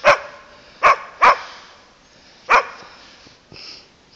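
A dog barking: four short, sharp barks, the second and third close together, the last about two and a half seconds in.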